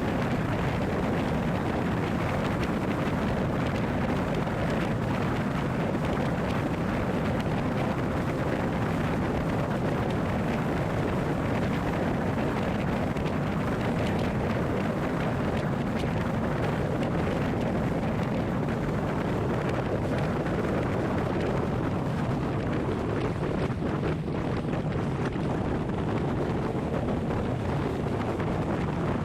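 Steady rumbling rush of noise with wind on the microphone, even and unbroken throughout.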